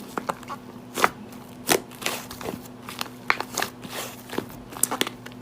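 Slime being played with by hand, giving irregular crackling clicks and pops, over a faint steady hum.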